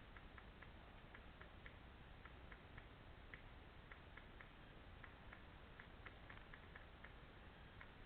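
Near silence: faint hiss with scattered short high ticks, sometimes several a second, coming in irregular clusters.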